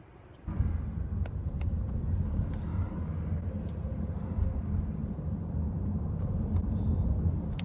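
Car cabin noise while driving: a steady low rumble of road and engine noise that starts abruptly about half a second in, with a few faint clicks.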